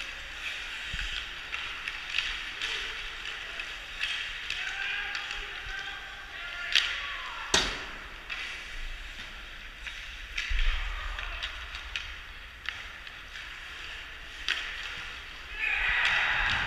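Ice hockey play heard in an arena: skates scraping the ice with scattered clacks of sticks and puck. Two sharp knocks come about seven seconds in, and the rink noise swells louder near the end.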